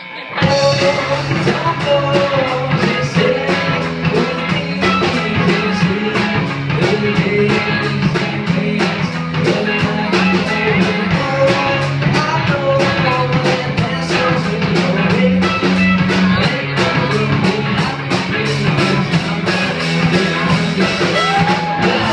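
Live rock band playing electric guitars and drums, with regular cymbal strokes and a male lead vocal. The band comes in together a moment in, after a short break.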